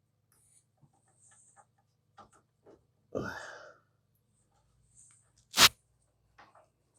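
A person sneezes once, a short sudden burst about three seconds in, then a single sharp click, the loudest sound, a couple of seconds later. A faint steady low hum runs underneath.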